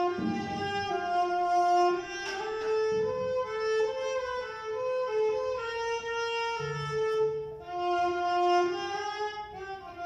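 A cello bowed in its upper register plays a slow melody of sustained notes, each held around a second, with a brief break in the phrase about eight seconds in.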